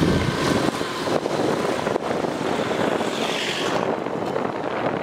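Motor scooter running along the road, its engine mixed with wind rushing over the microphone.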